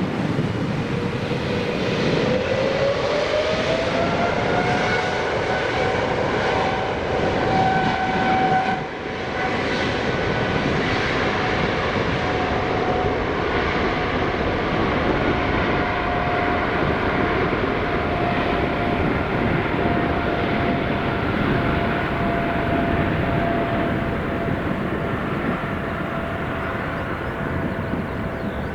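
Boeing 777 freighter's General Electric GE90 turbofan engines running loud over a broad jet rush. A whine climbs in pitch over the first few seconds as the engines spool up, then holds steady. The sound dips briefly about nine seconds in.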